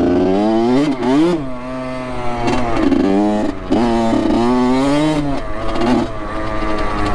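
Honda CR85 single-cylinder two-stroke dirt bike engine under way, its pitch climbing and dropping several times as the throttle is worked on and off.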